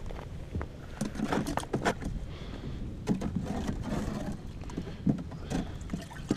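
Scattered light knocks and scrapes of gear being handled, over a steady low rumble.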